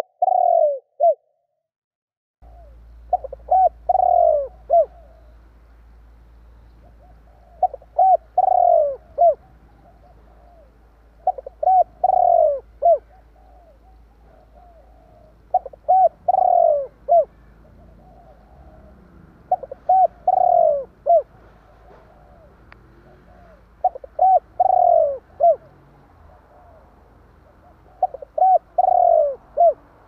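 Spotted dove cooing its song phrase over and over, about every four seconds: a few short coos running into a louder drawn-out coo and a short closing note. It is the territorial call used from a caged lure dove to draw wild doves in. A faint low hum comes in after about two seconds.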